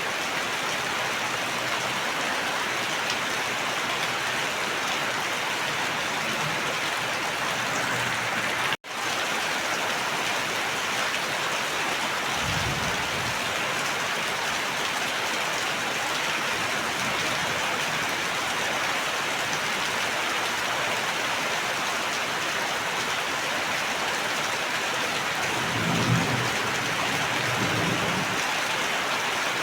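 Steady, heavy rain falling, with two low rumbles of thunder, one about 13 seconds in and a longer one near the end. The rain cuts out for a split second about 9 seconds in.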